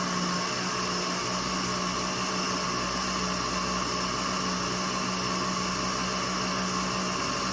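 Electric countertop blender running at a steady speed, mixing sugar and oil for a cake batter, with a constant motor hum under a hiss of whirling liquid.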